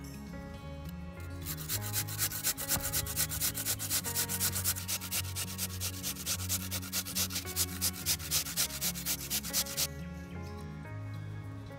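Raw butternut squash rasped on a conical stainless-steel grater: rapid, even strokes, about three or four a second, starting about a second and a half in and stopping near the ten-second mark. Soft background music runs underneath.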